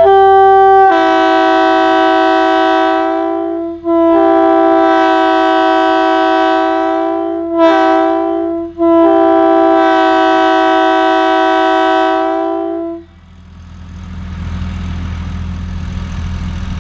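Leslie RS2B two-chime locomotive air horn blowing the grade-crossing pattern: a brief opening blip, then long, long, short, long blasts. A steady low hum remains after the last blast ends, about 13 seconds in.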